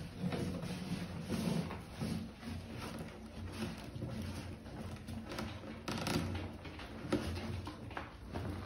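Puppies and an adult dog moving about on a vinyl floor, with irregular claw clicks and scuffs. A cardboard box is nudged and rustled as the dogs push at it, with a couple of sharper knocks about six and seven seconds in.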